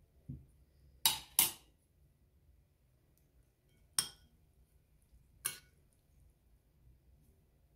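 Metal spoon clinking against a china plate while mixing rice: a soft thump near the start, then two quick clinks just after a second in and single clinks at about four and five and a half seconds.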